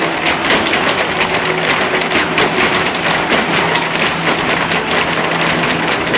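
Irish dance hard shoes clattering on a stage: a line of dancers beating out rapid, dense, overlapping taps, with instrumental music faintly underneath.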